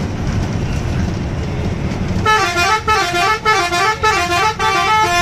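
Bus engine rumbling in the cabin, then about two seconds in a loud multi-tone telolet horn of the kind fitted to Indonesian intercity buses starts playing. It plays a repeating melody of notes stepping up and down, in several short phrases.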